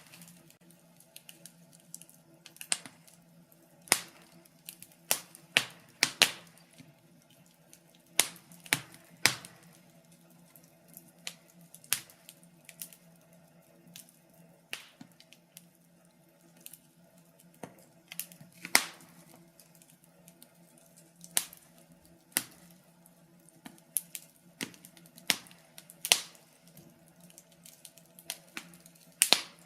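Wood fire crackling in a fireplace: irregular sharp pops and snaps, a few every couple of seconds, some louder than others, over a faint steady hum.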